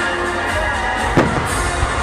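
Music playing steadily while a firework shell bursts with a loud bang about a second in, followed by a smaller bang near the end.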